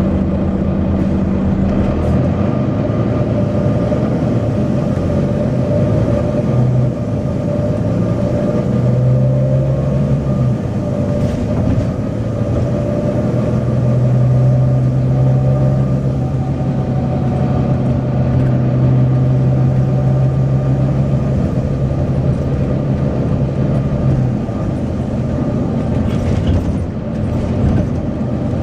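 Volvo B9TL bus's diesel engine running under way, a steady engine note whose pitch steps up and down several times and holds high for a long stretch in the middle.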